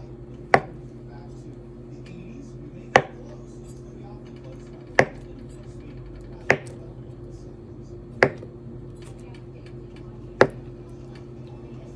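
Knife chopping on a cutting board: six slow, separate chops, each a sharp knock, over a steady low hum.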